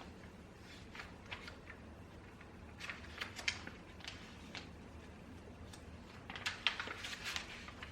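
Faint small desk noises from someone studying: scattered light taps, clicks and rustles in two short clusters, over a low steady room hum.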